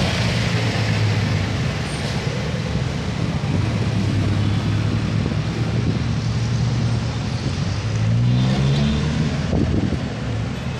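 Street traffic on a wet road: passing jeepneys and a van with engine noise and tyre hiss, over a steady engine hum that rises in pitch as an engine revs up about eight seconds in.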